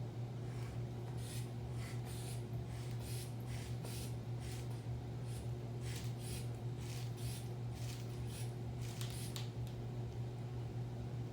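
Manual blood-pressure cuff in use: short airy hisses from the cuff and its rubber bulb, about two a second and unevenly spaced, stopping about nine seconds in, over a steady low hum.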